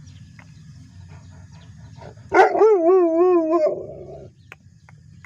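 Pshdar mastiff puppy giving one long, wavering yelping howl a little over two seconds in, lasting over a second before trailing off.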